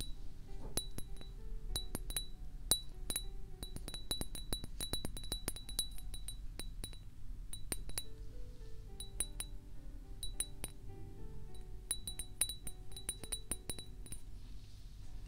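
A small glass object tapped and clinked close to the microphone, giving irregular runs of bright clinks that each ring with the same high note. The clinks thin out to a short lull around the middle, then pick up again.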